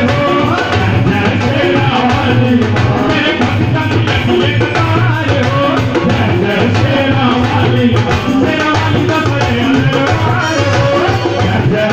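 Live amplified devotional song to the goddess Sherawali: a man singing into a microphone, backed by a dhol and an electronic keyboard.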